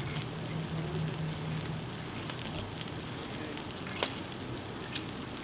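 Dry brush fire crackling steadily, with scattered pops and one sharper crack about four seconds in.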